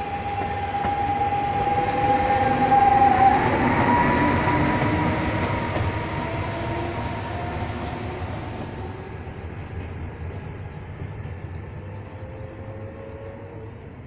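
Electric locomotive-hauled regional passenger train running past and pulling away: wheels rumbling on the rails with a steady whine that steps up in pitch about three seconds in. The sound is loudest around three to four seconds in, then fades as the train recedes.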